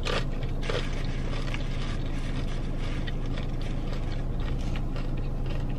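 Steady low hum of a parked car, heard from inside the cabin, with a few faint clicks and chewing sounds near the start as a plastic fork works through a food bowl.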